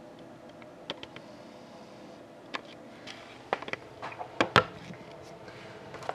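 Handling noise: a run of short clicks and knocks, the loudest about four and a half seconds in, as a camera is moved and a sealed cardboard box of trading cards is handled.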